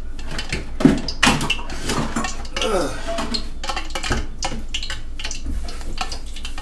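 Metal spoon repeatedly clinking and scraping against cookware as cooked egg-roll filling is scooped out of a cast-iron skillet into another bowl.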